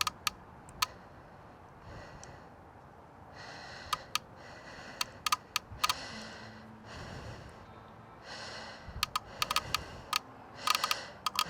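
Small sharp clicks and taps of wiring connectors and terminals being handled and pushed into a fuse block, some in quick clusters, with audible breaths and sighs between them.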